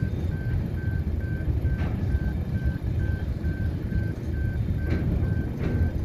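Empty bulk sugar hopper wagons rolling past: a steady low rumble with a few sharp wheel clicks over rail joints. Over it a level crossing's electronic bell beeps evenly, about three times a second.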